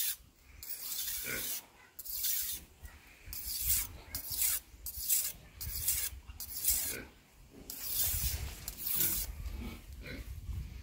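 A steel knife blade being drawn across a whetstone in repeated sharpening strokes, each a rasping scrape, roughly one or two a second, thinning out near the end.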